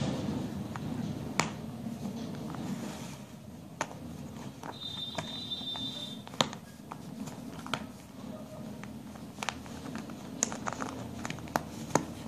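Small plastic Kinder Joy toy parts being handled and pressed together, giving scattered sharp clicks and snaps over a steady low hum. A short high squeak sounds about five seconds in.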